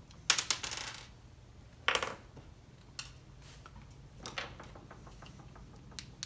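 Small hard parts and tools clinking and rattling as a chainsaw is handled on a workbench. A quick clatter comes just under a second in, another about two seconds in, then a few scattered ticks.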